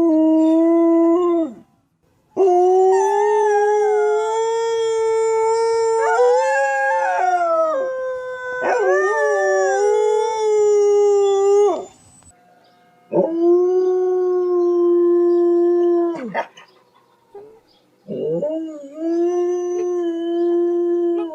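Dogs howling: four long, fairly steady howls with short pauses between them. Through the long middle stretch two dogs howl together at different pitches.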